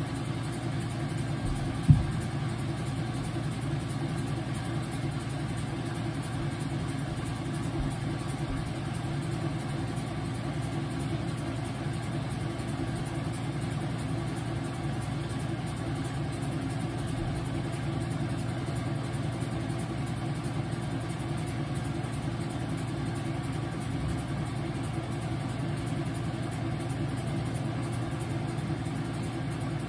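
Whirlpool washing machine running through a load of towels, a steady low hum and rumble from its motor and drum, with one sharp knock about two seconds in.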